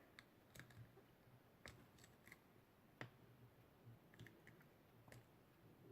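Near silence with about seven faint, scattered clicks and taps from handling a glue bottle over a bowl while the glue is squeezed out.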